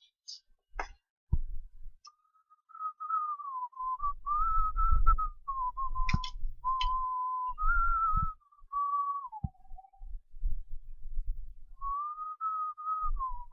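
A person whistling a tune while working: a single pure note moving up and down from note to note, pausing for a couple of seconds about two-thirds of the way through. Light tool clicks and low handling bumps come in between.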